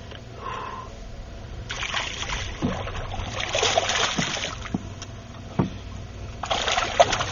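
Hooked black bass thrashing and splashing at the water's surface as it is reeled in. It comes in two bouts: one starting about two seconds in and lasting a few seconds, and another near the end.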